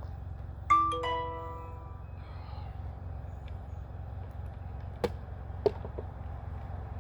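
Metallic clang, struck twice in quick succession, ringing with several bell-like tones that fade over about a second. Two sharp clicks follow about five seconds in, over a steady low hum.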